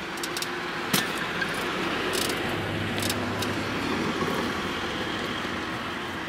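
Steady road rumble and wind noise of a bicycle being ridden along a street, swelling slightly in the middle, with a few sharp clicks from the bike about one, two and three seconds in.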